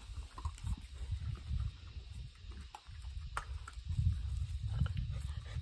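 Puppies eating dry kibble off concrete, crunching and picking it up with scattered crisp clicks, over an uneven low thumping.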